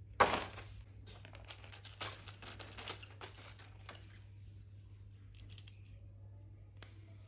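Plastic-packaged stationery being handled. A sharp knock about a quarter second in as a small notebook is set down on the pile, then crinkling and rustling of the plastic packaging, quieter later, with a single click near the end.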